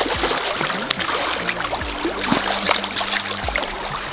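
River water running over the shallows, with scattered small splashes.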